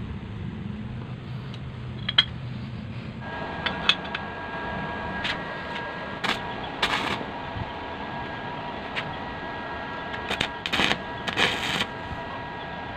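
Electric stick (arc) welding: several short bursts of arc crackle as the electrode tack-welds a thin square steel tube, the longest bursts near the end. A steady whine comes in about three seconds in and stays under the crackle.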